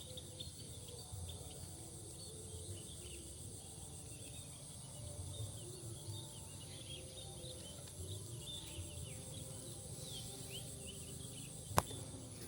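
A steady high insect drone of crickets, with many short bird chirps scattered through it. A single sharp click comes near the end.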